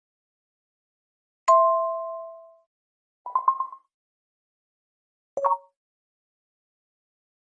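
Samsung Galaxy A51 built-in phone tones played one after another, three short electronic chimes with silence between them. First comes a two-note ding that rings out for about a second, then a quick run of short plucked notes, then a brief blip.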